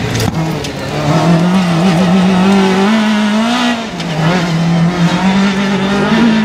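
Off-road racing buggy's engine running hard under throttle, its pitch climbing about three seconds in, dropping sharply just before four seconds as the revs fall, then rising again.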